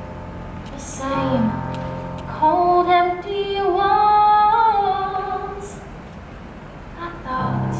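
A woman singing solo in a musical stage number, with a long, held, slowly climbing phrase in the middle. Low sustained instrumental accompaniment drops away under the held phrase and returns near the end.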